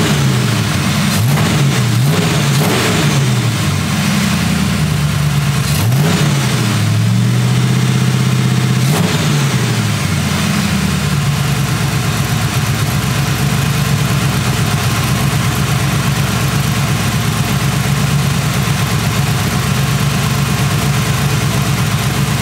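Engine of a 1940 Ford Tudor with a Holley carburetor being blipped several times, its pitch rising and falling, then settling about ten seconds in to a steady idle while the carburetor is adjusted.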